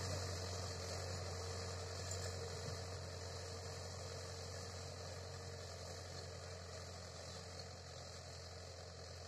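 Tractor engine running steadily under load while pulling a reversible mouldboard plough through the soil, growing gradually fainter as the tractor moves away.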